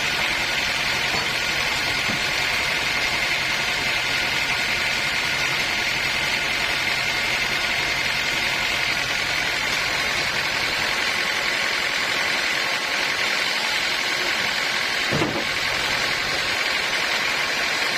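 Sawmill machinery running steadily, a constant hiss with a steady high whine over it, and a brief low sound about fifteen seconds in.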